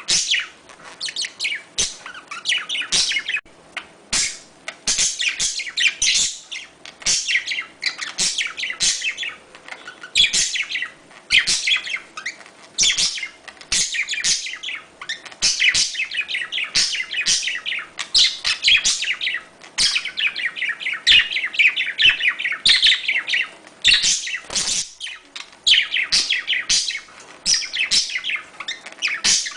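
Budgerigars chirping and chattering in a continuous run of quick, high calls: budgie courtship and mating calls.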